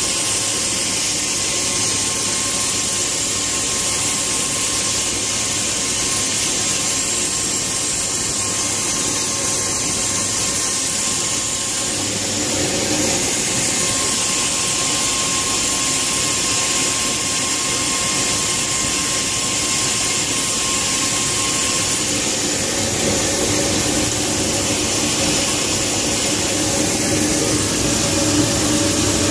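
Lockheed C-130 Hercules turboprop engines running during start-up, heard from inside the cockpit: a steady turbine whine and rush. The sound steps up a little about twelve seconds in, and lower engine tones join in near the end.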